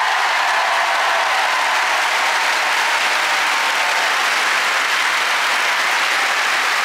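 A large theatre audience applauding, a dense, steady clapping that holds at an even level.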